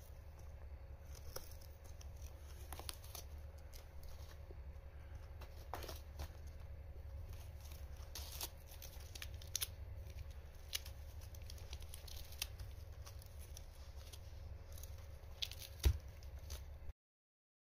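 A cat tearing at a corrugated-cardboard scratching pad with its teeth and claws: irregular sharp rips and crunches of shredding cardboard over a steady low hum, the loudest rip near the end.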